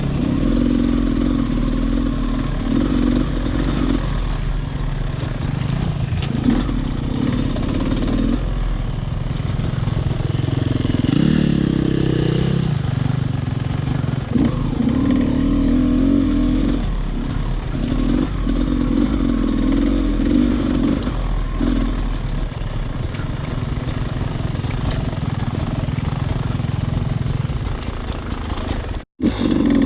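Off-road dirt bike engine running on a trail ride, the throttle repeatedly opened and eased off so the engine note swells and fades. The sound cuts out for an instant near the end.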